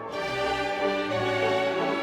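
Background orchestral music with sustained string notes over a shifting bass line.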